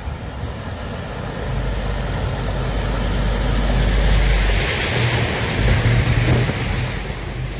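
DAF articulated lorry driving through deep floodwater close by: diesel engine running under a loud rush of spray and wash from its wheels. The splashing builds to a peak as the cab passes about four seconds in, then the trailer wheels churn by.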